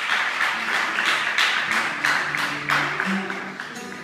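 Audience applauding after a song, the clapping dying away near the end.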